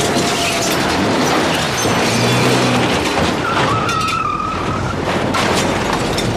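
A car skidding hard, with the engine running and the tyres scraping and squealing on the pavement as the car tips up on two wheels and goes over onto its side. Sharp crunching impacts run through it, and a held squeal comes about halfway through.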